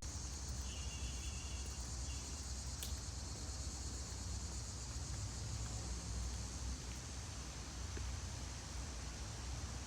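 Faint, steady high-pitched insect chorus at dusk, over a low rumble.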